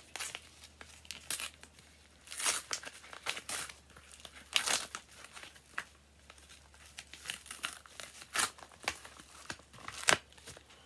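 Paper envelope being torn open and crinkled by hand: irregular crackling and tearing in short bursts, the sharpest one near the end.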